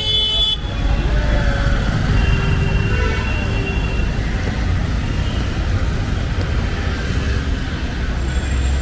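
Traffic on a busy city road: steady engine and tyre rumble from passing buses and cars, with a brief high-pitched squeal right at the start.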